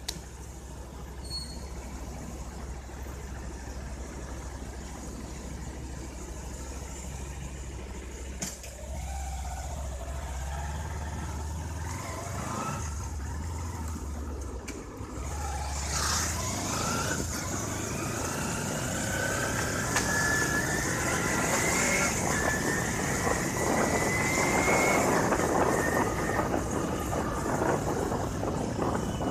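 Street traffic with vehicles passing. About halfway through, a vehicle engine pulls away and accelerates, rising in pitch, while road and wind noise grow louder.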